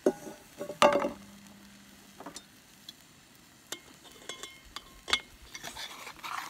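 A pan lid clattering down twice in the first second, the second time leaving a brief ringing tone. Then a plastic spatula taps and scrapes in a frying pan as the edge of a wrap pizza is lifted to check how brown the bottom is, with a faint sizzle from the pan.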